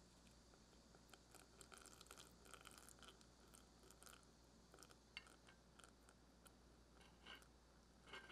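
Faint crackling and trickling of melted browned butter poured in a thin stream into financier batter in a glass bowl. It comes as scattered soft ticks.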